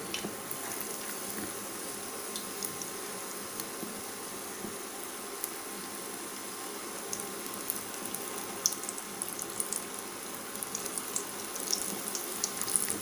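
Batter-dipped moong dal balls deep-frying in hot oil: a steady sizzle with scattered crackles that get busier near the end.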